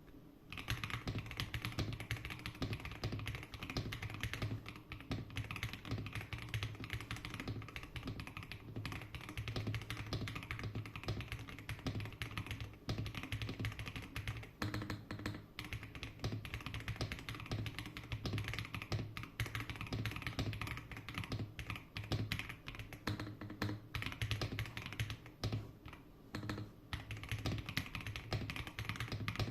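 Continuous fast typing on a GMK67 mechanical keyboard fitted with KTT Kang White linear switches: a dense, steady run of keystrokes, each with a low thud under the click.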